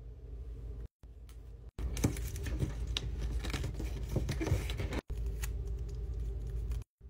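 Scissors snipping paper, then the paper folded and creased by hand, with a dense run of small crackles and clicks through the middle, over a steady low hum. The sound drops out completely for a moment several times.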